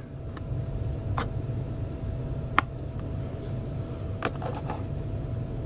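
Glock magazines being slid into a Kydex double magazine pouch: a few light plastic clicks and scrapes, one sharp click about two and a half seconds in, over a steady low hum.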